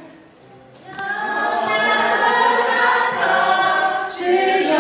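A group of people singing a graduation song together, unaccompanied, starting about a second in. Their many voices overlap loosely rather than in unison.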